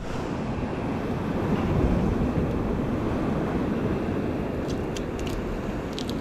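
Steady wind rumble on the microphone on an exposed coastal rock shelf, with a few faint clicks about five seconds in.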